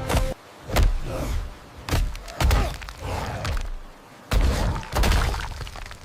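A series of heavy thumps, about five of them over six seconds, each striking suddenly and dying away.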